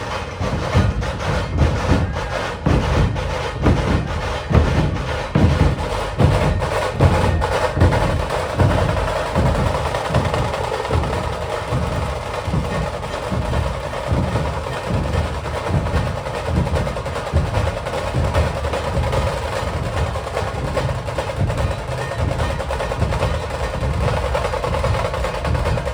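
Maharashtra dhol tasha ensemble playing: deep barrel dhol drums beating a fast, steady rhythm under continuous rapid stick rolls on the tasha drums.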